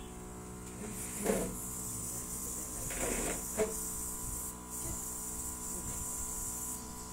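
Makeup airbrush spraying onto the eyelids: a steady hiss of compressed air that starts about a second in, dips briefly midway, and stops just before the end, over a steady hum.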